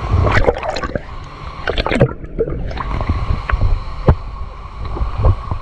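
Water splashing and sloshing, with a low rumble and irregular knocks.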